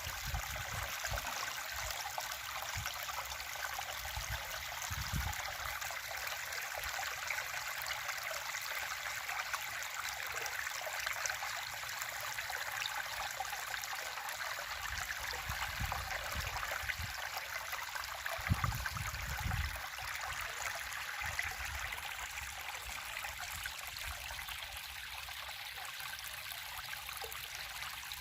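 River water running steadily over its bed: a continuous rushing, babbling flow. A few brief low rumbles break in, around five seconds in and again between about sixteen and twenty seconds.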